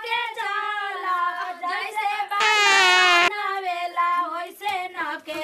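High women's voices singing in long held, wavering notes. About two and a half seconds in, one louder, shrill held note lasts about a second.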